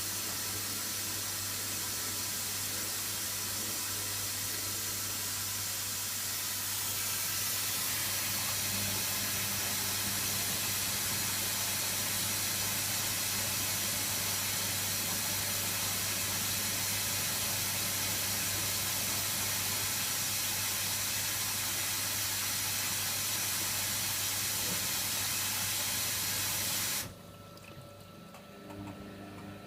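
Hoover Nextra HNWL7146 washer dryer running with a steady hiss over a low hum. The hiss grows a little louder about seven seconds in, and both cut off suddenly near the end.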